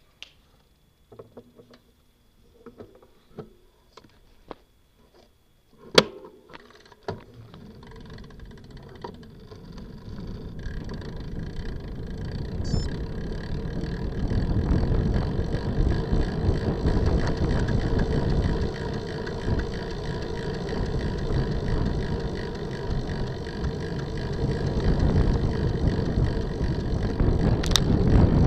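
Wind rushing over a bicycle-mounted camera's microphone, mixed with tyre and road noise. It builds from near quiet to a steady loud rush as the road bike gathers speed downhill. Before the rush there are a few light clicks and one sharp click about six seconds in.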